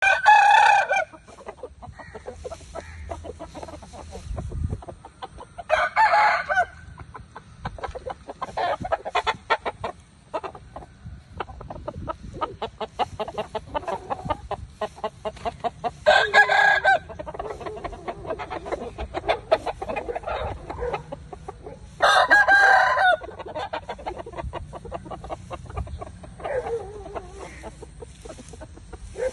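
Aseel roosters crowing in turn: four loud crows of about a second each, spread through, and a fainter one near the end, with soft clucking in between.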